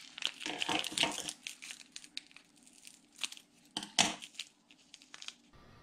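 A stick sachet of Nescafé freeze-dried instant coffee crinkling and rustling as it is handled and opened. Dense crackling in the first second or so is followed by scattered crinkles and a few sharp clicks.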